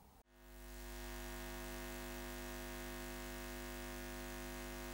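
Steady electrical buzzing hum with a hiss over it, fading in just after the start and then holding level: the buzz of a neon sign.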